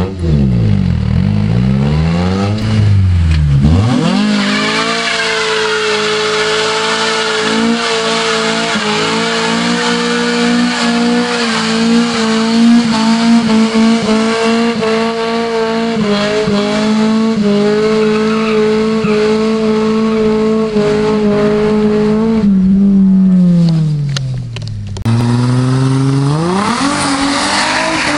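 A car engine held at high revs during a burnout, with the spinning tyres squealing on the asphalt. The revs swing up and down for the first few seconds, hold steady and high for most of the stretch, and fall away near the end. After an abrupt change, an engine revs up again.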